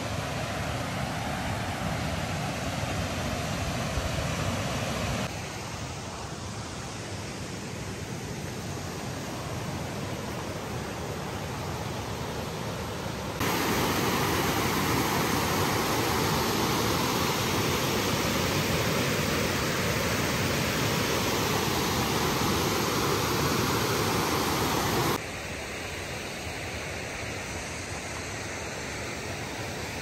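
Waterfall's water rushing steadily, heard across several spliced clips. It jumps louder a little before halfway in and drops back near the end.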